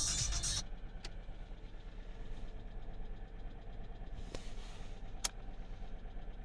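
Alfa Romeo 147 1.6 Twin Spark four-cylinder engine idling with a steady, rhythmic knocking tick from the valvetrain, plus a few sharper clicks. The knock came from worn hydraulic lifters; it went away once all 16 were replaced.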